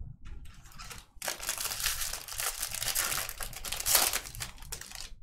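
Foil wrapper of a 2024 Topps Series 1 baseball card pack crinkling and tearing as it is opened. A few light rustles come first, then a dense rustle of about four seconds starting about a second in.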